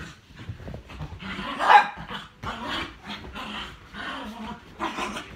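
A large dog barking and growling in short bursts as it roughhouses with a person, the loudest bark about a second and a half in.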